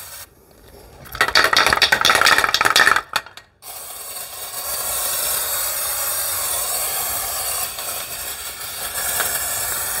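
Aerosol can of rock-guard undercoating spraying into a car's wheel well: a short spluttering burst about a second in, a brief stop, then a steady hiss from about four seconds on.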